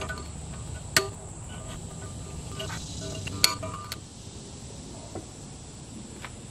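A hammer striking a seal removal tool to drive the pinion seal out of a Dana 60 axle housing: two sharp metal taps about two and a half seconds apart, with a few lighter knocks after them. Insects drone steadily at a high pitch underneath.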